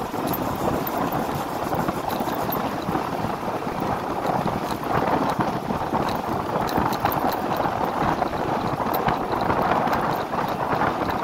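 Steady rushing, fluttering wind noise on the microphone mixed with the running engine and tyre noise of a first-generation Yamaha NMAX scooter being ridden along a road.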